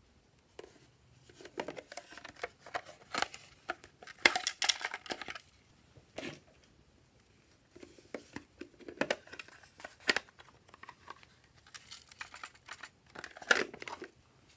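Hands handling small plastic toy containers in irregular bursts of clicks, rustling and crinkling. Shredded crinkly bits are tipped out of them onto trays of slime.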